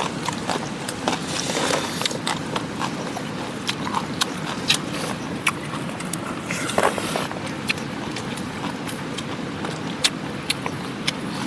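Steady rushing of a mountain river, with scattered sharp clicks and taps on top at irregular intervals.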